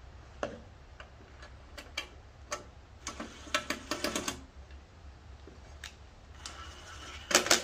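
Cordless driver fastening the bolts of a new recoil pull-start housing on a Briggs and Stratton mower engine: scattered sharp clicks, a quick cluster of them about three to four seconds in, and a louder burst near the end.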